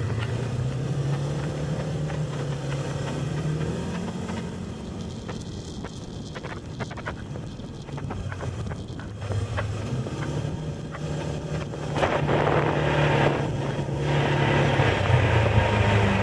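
Arctic Cat off-road vehicle engine running while riding along a grass trail, with wind buffeting the microphone. The engine is quieter in the middle and louder again from about twelve seconds in.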